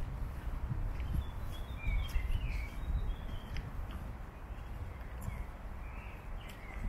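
Small birds chirping in short, curving calls, in a cluster about two seconds in and again near the end, over a steady low rumble. Faint crunching footsteps on a gravel path.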